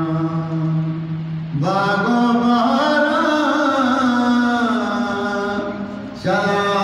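A man singing a Balochi naat solo and unaccompanied in long held, drawn-out notes. A low held note gives way about one and a half seconds in to a higher phrase that is sustained for several seconds. A new phrase begins near the end.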